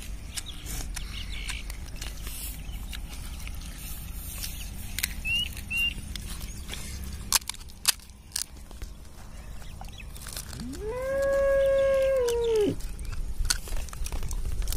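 A rooster crows once, about ten seconds in: one loud call of about two seconds that rises, holds level and drops at the end. Before it there are a few sharp cracks of crisp pani puri shells being poked open by hand.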